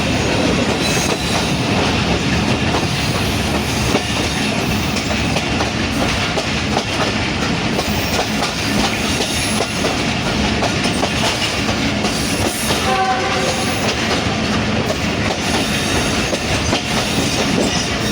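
Pakistan Railways passenger train running, a steady rumble and wheel clatter heard on board. About two-thirds of the way through, a short horn-like tone sounds briefly over it.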